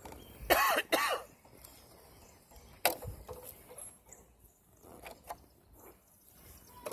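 A person coughs twice in quick succession, followed by a single sharp click about three seconds in.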